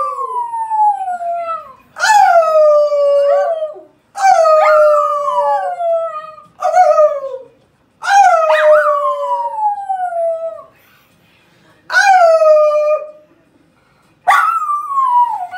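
Miniature schnauzer howling: a series of about seven howls, most of them long, each starting high and sliding down in pitch, with short pauses between.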